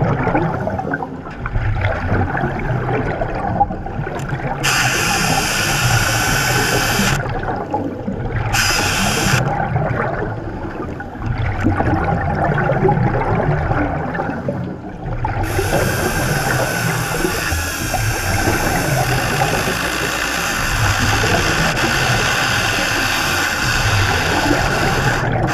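Hydraulic chainsaw heard underwater, its bar at a wooden piling. It comes on and off a few times, then runs steadily through the second half, over a continuous churning of water and bubbles.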